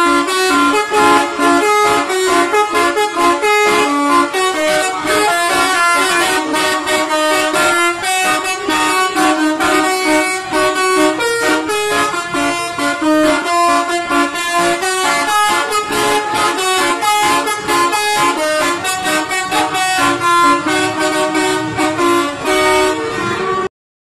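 A bus's telolet multi-tone air horn is played like a keyboard from a small piano-style button pad on the dashboard. It gives a fast, continuous melody of honking notes, then cuts off suddenly near the end.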